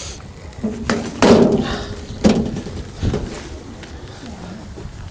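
A few sharp knocks and thuds of handling at a tofu stall, four in about two seconds, the loudest about a second in.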